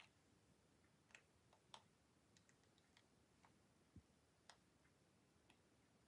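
Near silence, with faint, irregular clicks and ticks from a pencil tracing through a paper template onto a wax candle, and a soft low thud about four seconds in.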